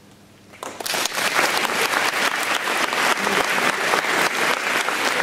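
Audience applauding at the end of a classical guitar piece, breaking out a little over half a second in after a brief hush and continuing steadily.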